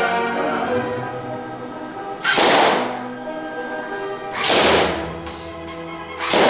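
Airsoft BBs bursting rubber balloons: three loud bursts about two seconds apart, each fading over about half a second, over background music with sustained notes.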